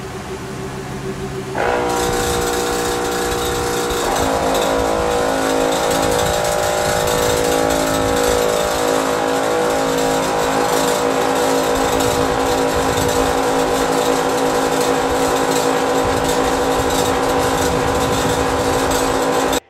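12V portable air compressor switching on about two seconds in and running steadily with a loud buzzing hum while pumping up a tire; its tone shifts slightly a couple of seconds later. A fainter steady hum is there before it starts.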